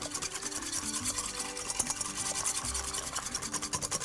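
Wire whisk beating eggs and sugar in a stainless steel bowl: rapid, rhythmic scraping strokes of the wires against the metal, whipping the mixture until lightly frothy for a chocolate coulant batter.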